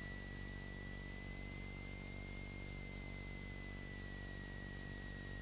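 Steady high-pitched electrical whine that wavers slightly in pitch, over a low hum and hiss: noise on a light aircraft's intercom audio feed.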